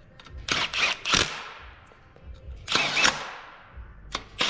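Milwaukee cordless impact tool hammering in several short bursts as it snugs down the fuel rail bolts on an engine's intake manifold. Each burst is a quick rattle of blows with a brief ringing tail.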